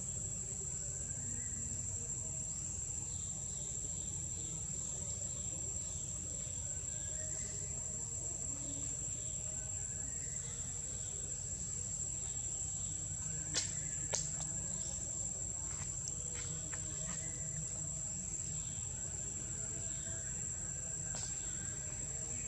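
Steady high-pitched insect drone, unbroken throughout. Two sharp clicks about half a second apart come a little over halfway through.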